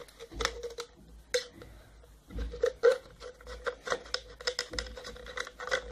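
Plastic tennis-ball can being cut around near its top: a run of irregular clicks, snips and crackles from the plastic, with a few dull bumps.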